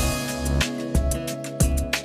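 Background music with a steady beat and plucked strings.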